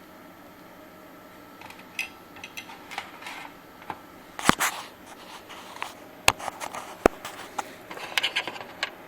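Handling noise from plugging a 3.5 mm audio cable in: scattered small clicks, taps and short scrapes, with a few sharper clicks midway and near the end, over a faint hiss.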